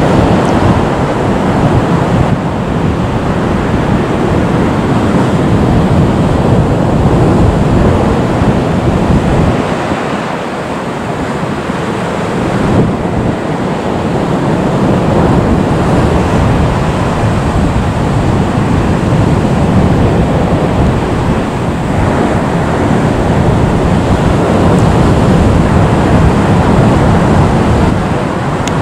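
Steady loud rushing noise of wind on the microphone, mixed with the engines of a Boeing 737 MAX 8 taxiing at low power. The low rumble eases briefly about a third of the way in.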